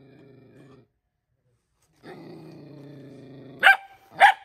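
A frightened dog growling low, once briefly and then longer after a pause, then giving two sharp barks about half a second apart near the end. This is a fearful, defensive warning, which is taken to be a bluff.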